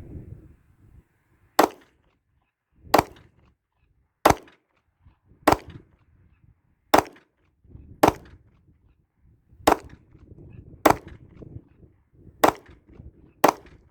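Ten shots from a Glock 48 MOS 9mm pistol, fired one at a time at a slow, even pace of about one every 1.2 to 1.6 seconds, using 115-grain reloaded rounds.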